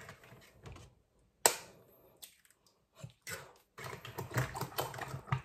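Eggs cracked against the rim of a stainless steel bowl: a sharp tap about a second and a half in, then a run of small crackling clicks from the shells breaking in the last second and a half.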